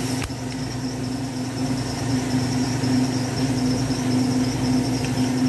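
Steady low machine hum with a thin high whine above it, and a single sharp click about a quarter second in.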